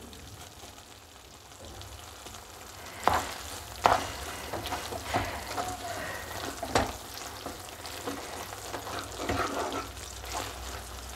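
A spatula stirring and scraping a thick, stiff banana toffee mixture in a pan on a gas stove, with irregular sharp knocks against the pan over a steady low hum. The mixture has cooked down until it pulls away from the sides of the pan, the stage at which the heat is turned off.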